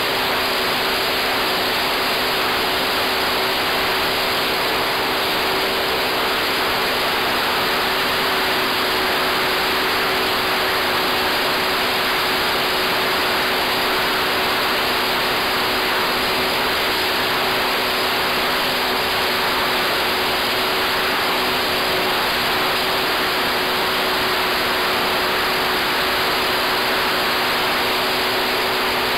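Radio-controlled model Sopwith Pup in flight, heard from a camera on board: a steady rush of airflow and propeller noise over a motor hum that holds one pitch.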